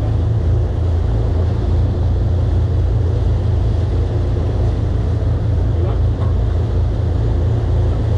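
Charter fishing boat's engine running with a steady low rumble.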